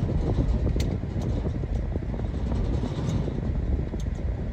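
Vehicle engine running with a steady low rumble, with a few faint clicks over it.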